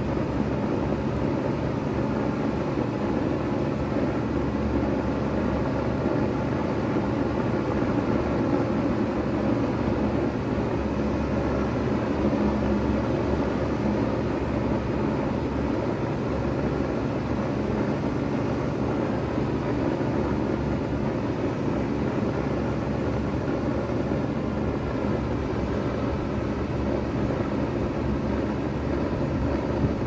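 A 2002 Bard 3-ton wall-hung heat pump running steadily in cooling mode: a low compressor hum under the rush of air from the condenser fan, holding an even level throughout.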